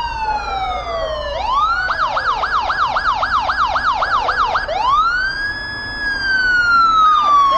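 Electronic emergency-vehicle siren: a wail falling to a low note, then a fast yelp warbling up and down about four times a second, then a rise to a held high note that starts falling again near the end.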